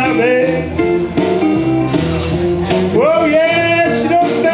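A man singing a blues number live into a microphone, holding and bending long notes over instrumental backing.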